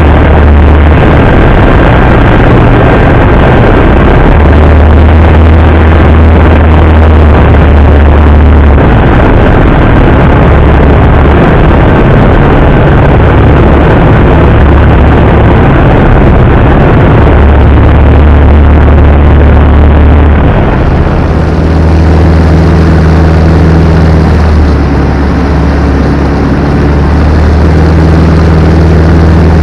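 Single-engine propeller airplane's engine and propeller droning steadily, heard loud from inside the cockpit. About two-thirds of the way through, the drone's tone shifts slightly and more wind hiss comes in.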